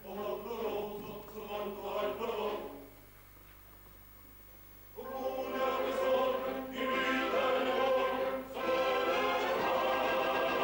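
Opera chorus singing with orchestra: a phrase of about three seconds, a pause of about two seconds, then a louder, fuller entry about five seconds in.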